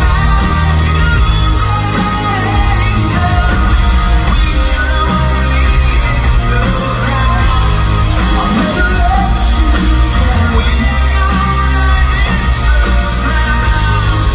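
Live rock band playing loud through a hall PA: a male lead singer over electric guitars and a full band with heavy bass, heard from the audience in a large hall.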